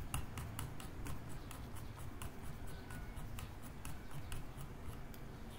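Computer mouse scroll wheel clicking notch by notch as a document is scrolled: a quick run of light ticks, several a second, thinning out near the end.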